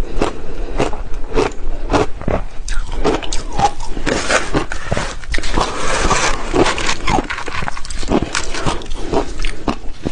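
Crushed ice being crunched between the teeth in a steady run of bites, about two a second. Around the middle, a spoon scrapes and scoops through the crushed ice in a glass bowl.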